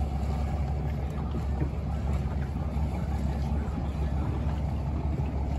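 A boat's engine running steadily, a low even rumble, with water and wind noise over it.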